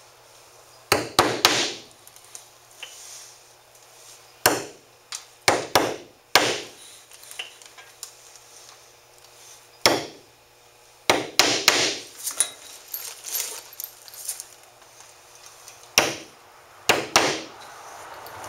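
Hammer driving nails through a beaver hide into a plywood board. The strikes are sharp and come singly or in quick runs of two or three, a few seconds apart.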